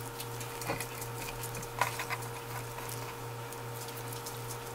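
Hands tucking rolled napa cabbage, perilla leaf and sliced pork bundles into a pot: soft scattered leaf rustles and small clicks, one a little sharper about two seconds in, over a steady low hum.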